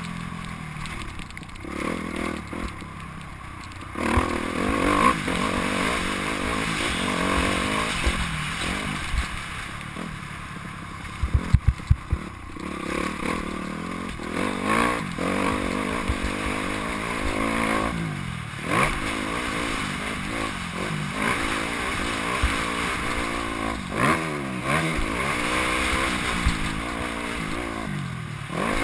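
Motocross dirt bike engine revving up and dropping back over and over as the rider accelerates and shifts through a lap, heard from a helmet-mounted camera. A quick cluster of sharp knocks comes a little under halfway through.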